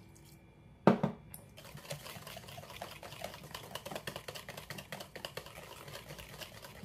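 A wire whisk beating a runny soap mixture in a plastic bowl: a fast, irregular run of light clicks and sloshing. A sharp clink sounds twice about a second in, before the whisking starts.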